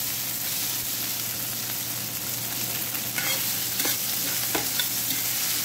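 Steamed rice cake cubes and shrimp sizzling in hot oil in a cast-iron skillet while they are stirred and turned with a spatula. A few sharp scrapes of the spatula against the pan come about three to four and a half seconds in.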